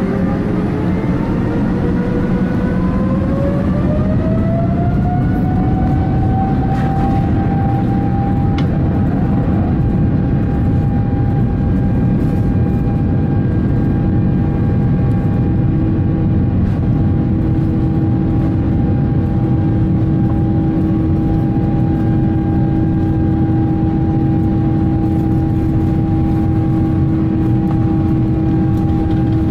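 Boeing 787-9 jet engines at takeoff thrust during the takeoff roll, heard from inside the cabin. A whine climbs in pitch for the first few seconds, then levels off and holds steady over a loud, even roar.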